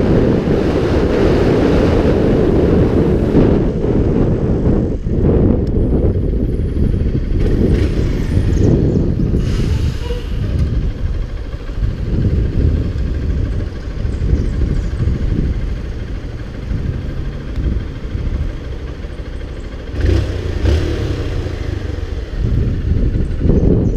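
Motorcycle riding with its engine running, under heavy wind rumble on the microphone. The sound drops back around the middle, while the bike is slowed or stopped at a red light, and picks up again near the end.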